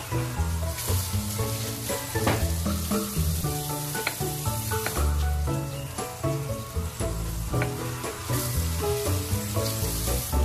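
Stone pestle crushing and grinding red chillies in a stone mortar: a wet, gritty crushing noise with occasional sharp knocks of stone on stone. Background music with a stepping bass line plays underneath.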